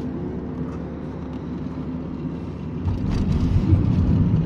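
Car driving, heard inside the cabin: a steady low rumble of engine and tyre noise that gets louder about three seconds in.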